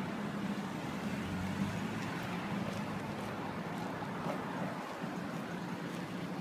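Street traffic: a car's engine and tyres as it drives slowly past at close range, over a steady low hum of surrounding traffic.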